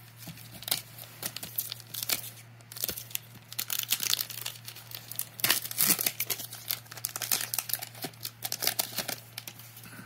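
Foil Pokémon booster pack crinkling as it is handled and torn open, in irregular bursts of crackling, loudest about four to six seconds in.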